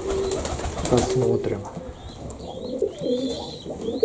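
Baku pigeons cooing in a loft: several low, wavering coos that come one after another and overlap.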